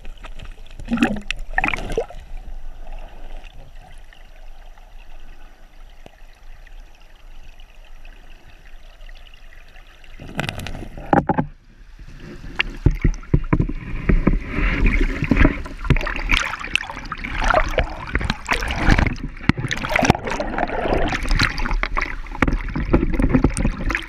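Shallow creek water sloshing and bubbling against an underwater camera housing: quieter with a few knocks at first, a couple of loud knocks about ten seconds in, then louder, choppy splashing and gurgling from about twelve seconds in as the camera sits at the surface of a fast riffle.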